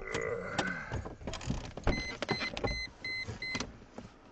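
Clicks and knocks inside a car cabin, then a car's electronic warning chime beeping five times, about three beeps a second.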